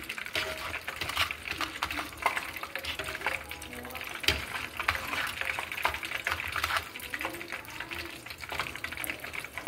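Catfish nuggets frying in a pan of hot oil: a steady sizzle with many small crackles and pops. Metal tongs click and scrape as more pieces are rolled in breadcrumbs.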